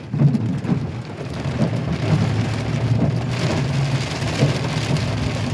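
Heavy rain beating on a truck's roof and windshield, heard from inside the cab, over the low steady hum of the idling engine. The rain's hiss grows louder about three seconds in.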